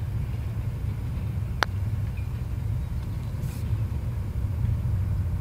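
A golf putter strikes a ball once, a single sharp click about a second and a half in. A steady low rumble runs under it.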